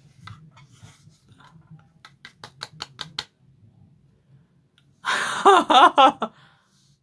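A quick run of about seven light clicks, then a loud, wordless vocal sound from a young woman lasting about a second, its pitch wobbling up and down.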